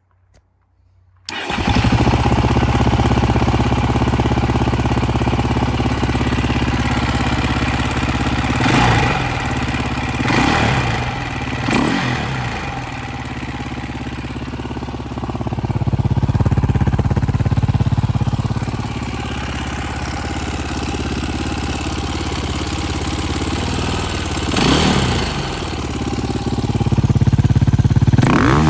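A KTM 530 EXC's single-cylinder four-stroke engine starts about a second in and idles, revved in short blips three times about a third of the way through and twice more near the end. The owner presents it as backfiring and making an unusual noise from the engine.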